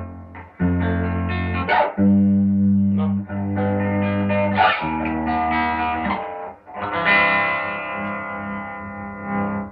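Electric guitar (Aria Pro Explorer) played through a home-built single-ended high-gain amp running 1930s AF7 and AL4 pentode tubes, with all gain stages in. Distorted chords are struck several times and left to ring, and a last chord sustains from about seven seconds in.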